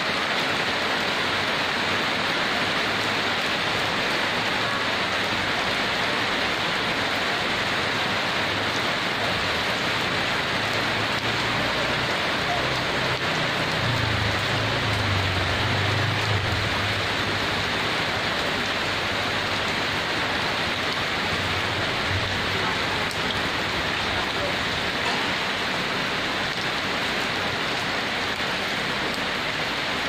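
Heavy rain falling steadily on leaves and ground. A low hum comes and goes through the middle, loudest about halfway in.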